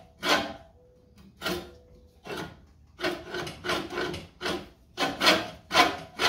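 Blades of a Silent Scott's Deluxe manual reel mower scraping past the bed knife one after another as the reel is turned by hand, a short dry rasp each time a blade passes. There is a pause about a second in, then the scrapes come evenly, about three a second. This is a check of reel-to-bed-knife contact after adjusting it.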